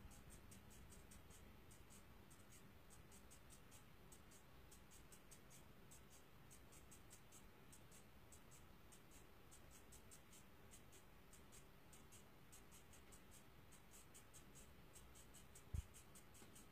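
Near silence: room tone with faint, evenly spaced high ticking, several ticks a second, and one soft knock near the end.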